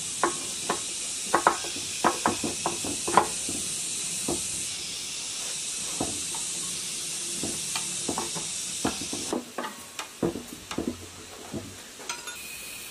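Socket wrench clicking and clinking on metal while the mounting nuts of a new fuel injection pump are tightened onto a 1115 diesel engine's crankcase. It comes as irregular sharp ticks, over a steady high hiss that drops away about nine seconds in.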